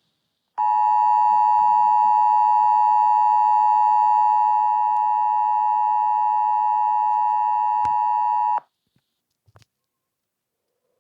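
Emergency Alert System attention signal: the two-tone alert (853 and 960 Hz sounded together), held steady for about eight seconds and then cut off abruptly.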